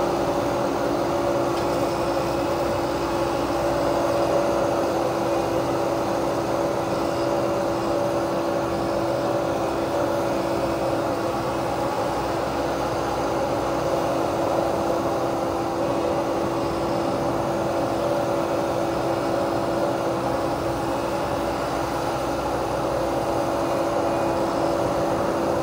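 Menzi Muck walking excavator running steadily, its engine and hydraulics driving a flail mower head, with an even, unchanging hum at a constant pitch.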